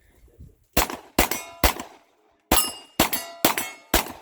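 Rapid pistol shots at steel targets, each followed by the clang of the struck steel plate ringing: three quick shots about a second in, a short pause, then four more in quick succession.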